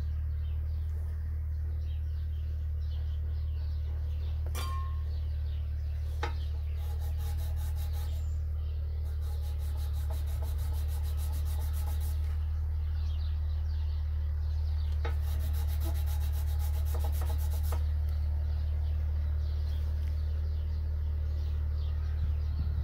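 A carbon motor brush being rubbed back and forth on 320-grit sandpaper, in several stretches of quick, even scratching strokes. The brush is being ground down narrower to fit its holder in a Mercedes auxiliary heater water pump motor. A steady low hum runs underneath, louder than the scratching.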